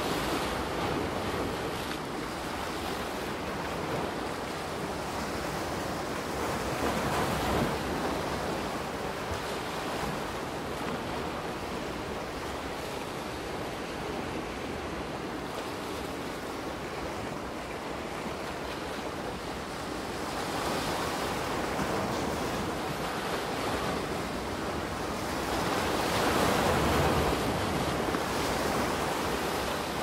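Soft ocean waves washing onto a beach: a steady surf hiss that swells and falls back with each wave, three times in all, the loudest swell near the end.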